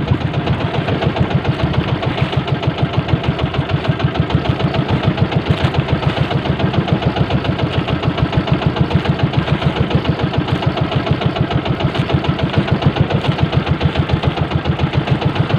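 Small boat engine running steadily, with an even, rapid pulse.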